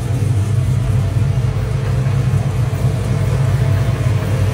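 Whipple-supercharged Hellcat HEMI V8 idling steadily, a loud, even, deep rumble.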